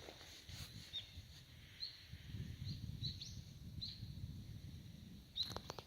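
Short bird chirps repeating about once a second over a low outdoor rumble, with a few sharp clicks near the end.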